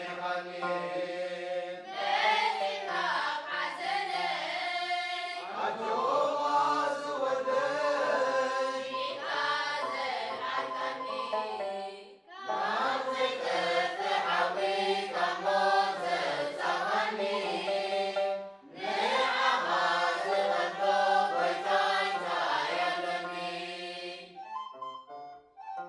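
Mixed choir of men and women singing a Tigrinya Eritrean Orthodox Lenten hymn (mezmur), in long phrases with short breaks about 12 and 19 seconds in. The singing stops shortly before the end, leaving a few quieter notes.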